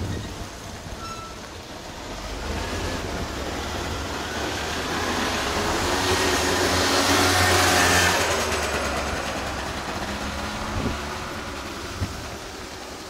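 A motor vehicle passing close by: engine and tyre noise builds over several seconds, is loudest about eight seconds in, then fades away.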